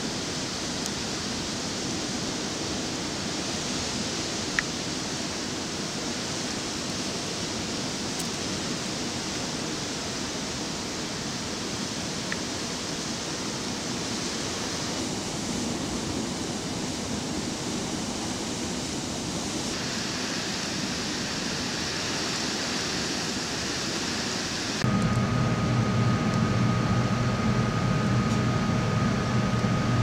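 Blizzard wind blowing steadily, an even rushing hiss of wind and driven snow. About 25 s in, it cuts suddenly to a louder steady machine hum with a few held tones.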